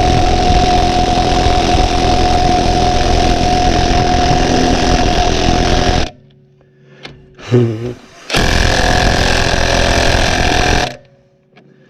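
Cordless impact wrench hammering on a seized lug nut: one long run of about six seconds that cuts off, then a shorter second burst after a brief pause. The nut does not break free.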